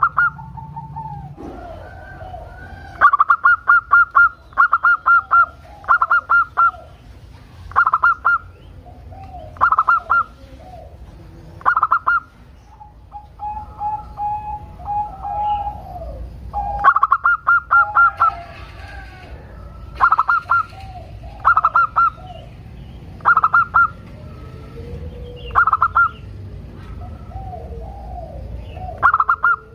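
Zebra dove (perkutut) singing: loud, clipped cooing notes in short groups every couple of seconds, some run together in quick series, with softer lower notes between the groups.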